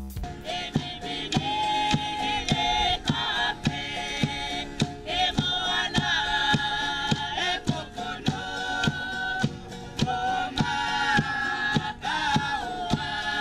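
A group of voices singing a chant-like song together over a quick, steady beat of percussion strokes, about two to three a second.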